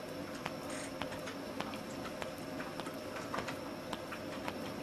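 Middle finger joints being cracked again and again: a quick, irregular series of small pops, about two or three a second.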